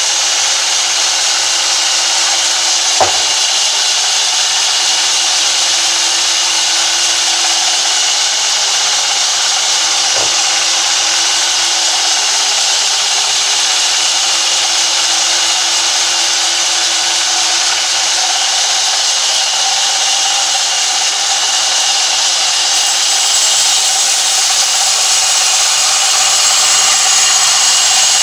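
Sawmill band saw cutting lengthwise through a heavy timber beam as it is fed along the table: a steady, loud hiss of the blade in the wood. There is a sharp knock about three seconds in and a fainter one about ten seconds in, and the sawing grows a little louder near the end.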